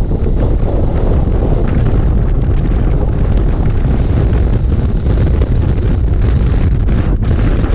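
Loud, steady wind buffeting on the microphone of a KTM 1290 Super Adventure S motorcycle as it rides and speeds up, with the bike's running noise underneath.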